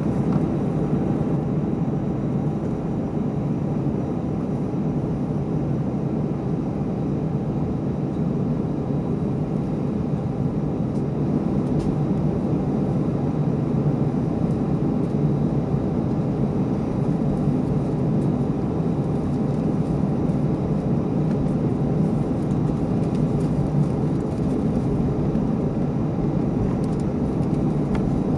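Steady low rumble inside the cabin of an Airbus A319 on the ground, its engines running at idle.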